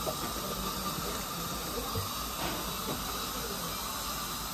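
A steady hiss, even and unbroken, with a few faint taps.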